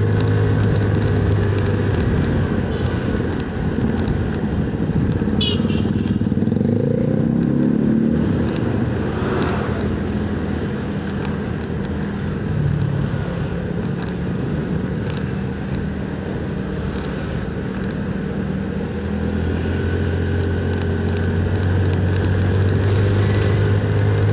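Yamaha automatic scooter's engine running while riding, with wind and road noise over the microphone; the engine note shifts as the speed changes, mostly through the middle. Other motorbikes and cars are in the traffic around it.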